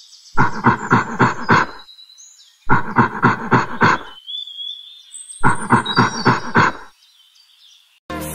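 Chimpanzee calling: three bursts of rapid, repeated hoots, each about a second and a half long with short pauses between them. Faint bird chirps sound behind the calls, and music starts near the end.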